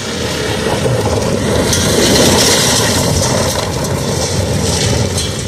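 Jeep Cherokee driving hard across loose dirt and gravel: the engine runs under load while the tyres scrabble and throw up grit. The sound swells about two seconds in and then eases a little.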